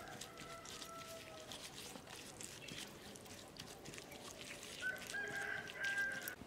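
A rooster crowing, one held call lasting about a second and a half near the end, the loudest sound here, with a fainter call about a second in. Light clicks and scrapes from a utensil stirring sauce in a metal bowl run underneath.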